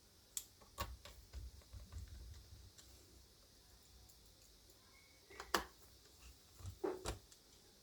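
Light clicks and taps of small screws and laptop parts being handled while the battery is fitted into the laptop's chassis. A cluster of soft clicks comes in the first couple of seconds, then a sharper click about five and a half seconds in and a few more near the end.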